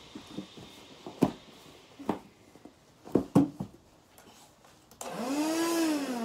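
Scattered thumps and knocks of scuffling with a large stuffed teddy bear on a carpeted floor. About five seconds in, a loud buzzy pitched sound starts suddenly, rising and then sliding back down in pitch.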